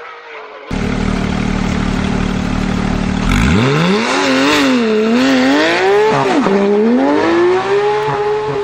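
An engine idling with a low steady note, then revving: the pitch climbs, wavers up and down a few times, drops sharply about six seconds in and climbs again.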